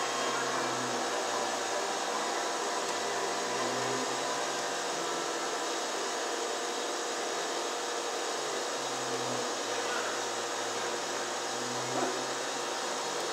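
Steady drone of a running machine, with a low hum that swells and fades every few seconds and a short knock near the end.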